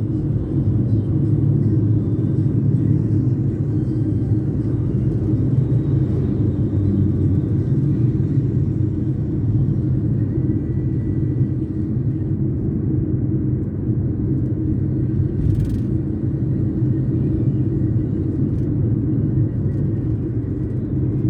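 Steady low rumble of a taxi in motion, heard from inside the cabin: engine and road noise. A brief knock about three quarters of the way through.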